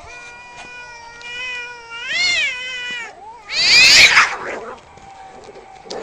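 Domestic cats in a fight standoff: a long, drawn-out caterwaul of about three seconds that rises and wavers near its end. About half a second later comes a loud, harsh screech.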